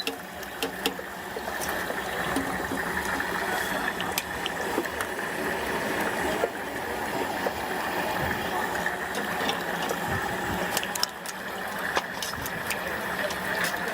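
Hot oil in a deep fryer sizzling steadily as tofu fries, with scattered small pops and clicks.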